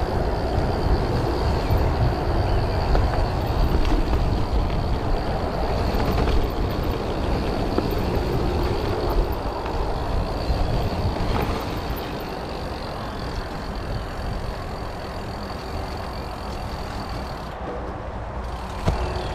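Mountain bike rolling fast down a wet gravel forest trail: wind rumbling on the camera microphone over the tyres crunching through gravel and mud, louder for the first dozen seconds, with a sharp knock near the end.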